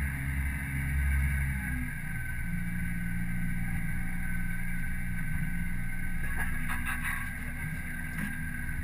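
Boat's outboard motor running steadily at low speed, its note shifting about two seconds in, with a few short clicks about six to seven seconds in.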